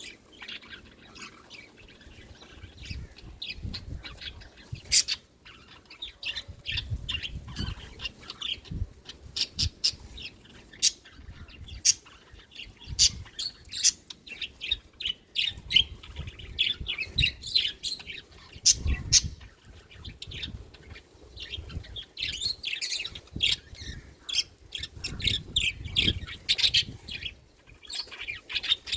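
Budgerigars chirping and chattering: a rapid, continuous run of short high chirps and squawks from several birds, with now and then a low rumble underneath.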